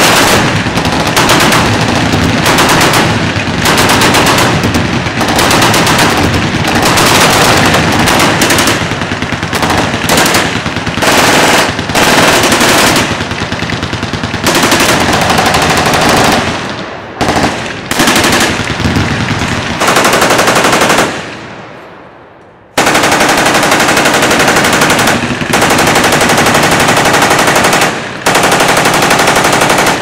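Several machine guns firing full-auto bursts at once, loud overlapping gunfire with hardly a pause. About two-thirds of the way through the firing stops and its echo dies away for a second or so, then heavy automatic fire starts again abruptly.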